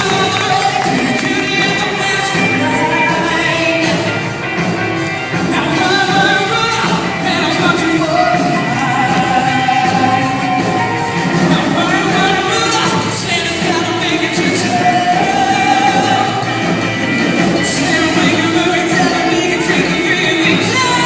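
A song with a singing voice over a pop-rock band accompaniment with a steady beat.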